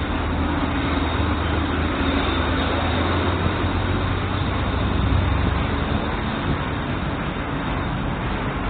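Road traffic noise: a steady low rumble of vehicles under an even hiss.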